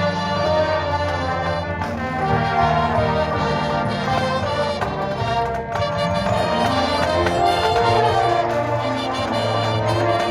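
Marching band brass section playing full held chords.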